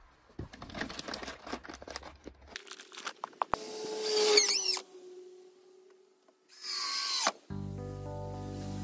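Cordless drill driving screws into new wooden roof boards: a few knocks and clicks of handling first, then two short runs of the drill motor with its pitch swinging as the trigger is worked. Background music comes in near the end.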